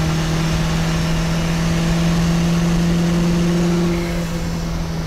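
MK1 VW Rabbit's 1.6-litre turbodiesel four-cylinder pulling hard in fourth gear at about 29 psi of boost, heard from inside the cabin. Its engine note climbs slowly, then drops back a little about four seconds in.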